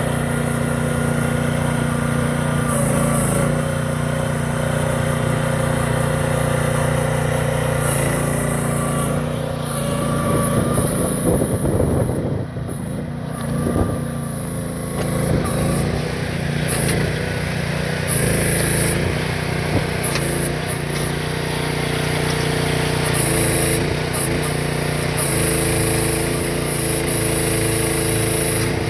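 Small engine of a 1.2-ton AGT H-12 mini excavator running steadily. Its note breaks up and dips in loudness about ten to fifteen seconds in, then settles back to a steady run.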